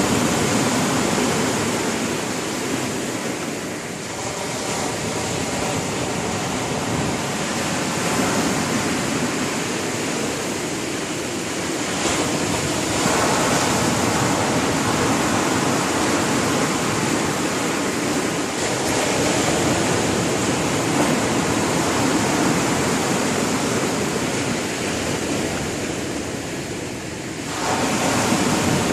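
Sea surf breaking on the shore in a fairly rough sea, a continuous rush of water. It dips briefly and then surges louder as waves crash in, about four seconds in, again around thirteen seconds and near the end.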